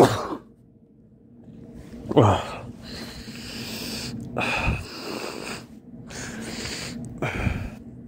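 A man sneezing over and over: a sneeze right at the start, then three more about every two and a half seconds, each after a sharp in-breath. The loudest comes about two seconds in. They are brought on by a nose that still tickles.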